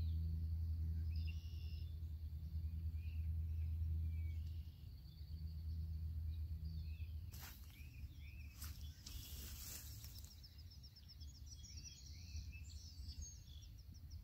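Small birds chirping, with a low steady rumble under them for the first few seconds that then drops away, and a couple of brief rustling noises midway.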